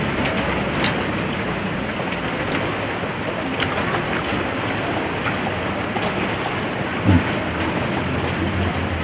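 A steady, even hiss like rain, with scattered small clicks and one thump about seven seconds in.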